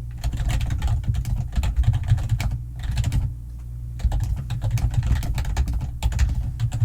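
Fast, continuous typing on a computer keyboard, many quick keystrokes in an uneven rhythm, with a brief pause about three seconds in.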